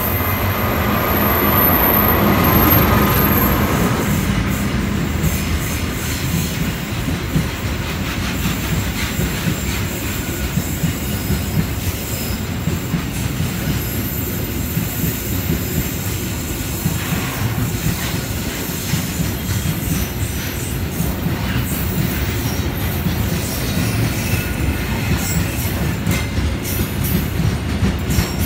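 CC206 diesel-electric locomotive passing close by at the head of a container freight train, its engine loudest in the first few seconds. Then the container flatcars roll past with a steady rumble, clickety-clack of wheels over rail joints and some wheel squeal.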